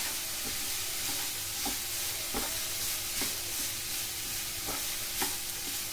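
Finely chopped carrot and onion sizzling in hot oil in a nonstick pan while a slotted spatula stirs them, its strokes scraping the pan at irregular intervals. The vegetables are half-fried, being only lightly sautéed.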